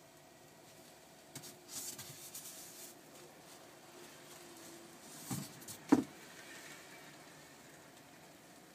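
Faint clatter and light taps as a cook sprinkles pickled ginger by hand over batter in a cast-iron takoyaki pan, with one sharp knock about six seconds in. A faint steady hiss runs underneath.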